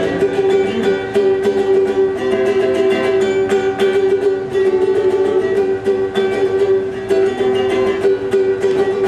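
Ukulele strummed in a quick, steady rhythm, chords ringing, with no singing.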